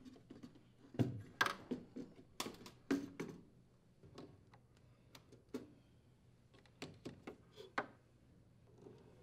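Pliers clicking on spring hose clamps and rubber drain hoses being worked off plastic fittings on a furnace drain trap: a string of small clicks and light knocks, busiest in the first few seconds and sparser after.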